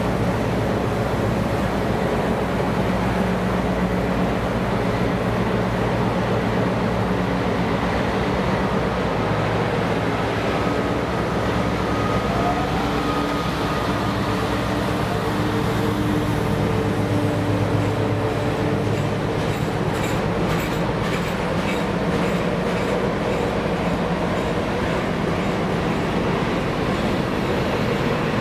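DB Cargo Class 60 diesel locomotive passing with its engine running steadily, followed by a rake of tank wagons rolling by. Later on, the wagon wheels give a run of regular clicks over the rail joints.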